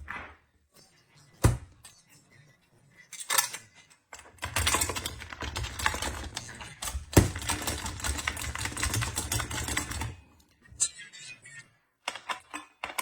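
Metal parts and a hex wrench clicking and rattling as the safety guard of an angle-grinder chainsaw attachment is screwed on. A few sharp single clicks come first, then about six seconds of fast, continuous clicking and clatter, with one louder click in the middle.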